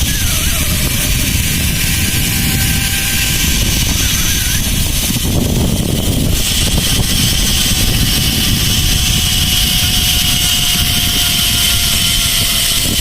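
Zipline ride: wind rushing and buffeting over a phone microphone, with the thin, steady high whine of the trolley's pulleys running along the cable.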